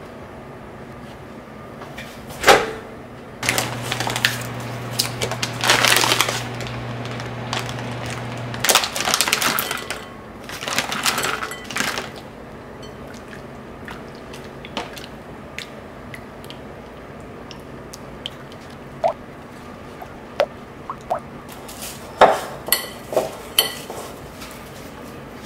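Kitchen handling sounds from a glass mixing bowl: a silicone spatula scraping and stirring white chocolate into hot cream, then cling film crackling as it is pulled and pressed over the bowl, with a run of sharp clicks near the end. A few seconds in, a low steady hum runs for about five seconds.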